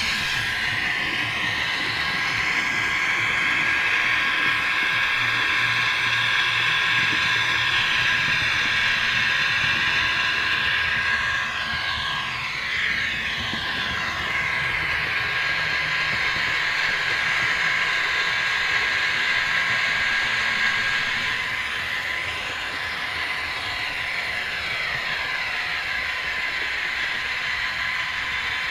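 H0-scale model trains running on the layout: a Piko BR130 sound decoder plays its recorded Ludmilla diesel engine sound through a small speaker over the steady whine of the motors and the rolling of wheels on the rails. Pitch sweeps rise and fall through the sound about halfway through and again near the end.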